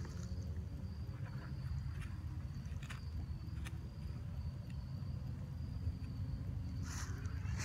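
Crickets trilling steadily on one high note, over a constant low rumble. Faint clicks and a short rustle of dry leaves come about seven seconds in.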